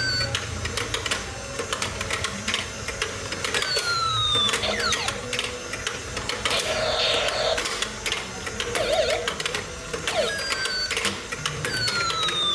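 A plastic toy hammer rapidly tapping the pop-up moles of an electronic whack-a-mole game, giving a quick run of clicks. The toy also plays electronic sound effects, including falling, whistle-like tones about four seconds in and again near the end.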